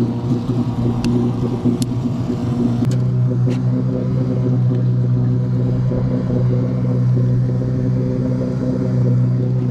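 Boat motor running steadily with an even hum; its pitch steps slightly about three seconds in. A few sharp clicks come in the first few seconds.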